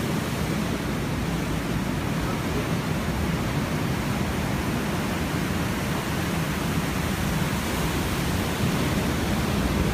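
Ocean surf breaking, a steady, even rush of wave noise with no let-up.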